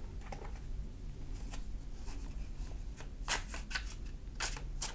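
A tarot deck shuffled by hand: several short rasps of cards sliding against each other, faint at first and louder in the second half.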